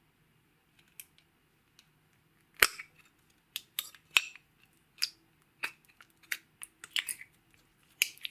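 Sharp plastic clicks and taps as a small clear plastic slime container is handled and opened. About a dozen separate clicks come at irregular spacing, starting about two and a half seconds in, and the first one is the loudest.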